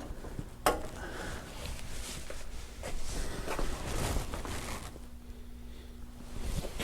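Handling noises from sheet-metal body panels being adjusted by hand: a sharp click under a second in, then scattered light knocks and scrapes over a faint low hum.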